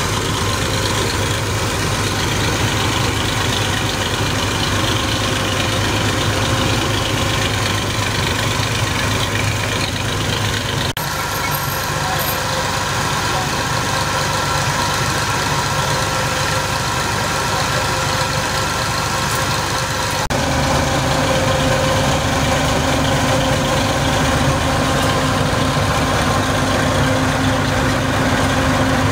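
Tractor diesel engine running steadily under load, driving a trailer-mounted mustard-oil expeller. The steady drone changes slightly twice, about 11 and 20 seconds in.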